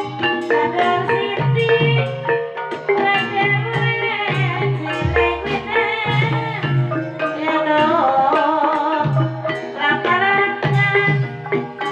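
Javanese gamelan music accompanying a kuda kepang dance: interlocking struck mallet notes over steady hand-drum strokes, with a singer's wavering melody entering about four seconds in. A deep low stroke sounds about five seconds in.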